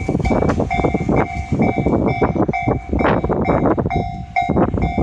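Level-crossing warning bell ringing a repeated two-tone 'kan-kan', about two rings a second, over the clacking and rumble of a train's wheels crossing rail joints; the wheel noise eases briefly near the end.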